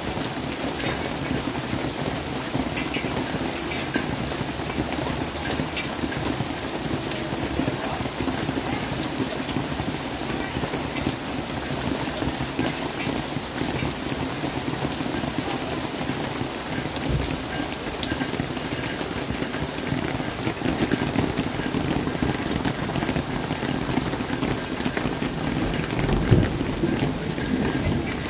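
Steady rain falling, with close drops ticking. Low thunder rumbles in the second half and swells briefly near the end.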